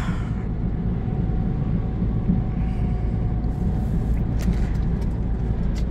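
Scania truck's diesel engine and road noise heard from inside the cab while driving, a steady low drone with a faint held whine. A couple of faint ticks sound near the end.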